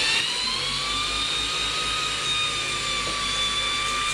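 A 1/2-inch electric drill driving a big block Chevy oil pump, pumping waste oil up into a drum. The drill's motor whine rises in pitch over the first second as it spins up, then holds steady.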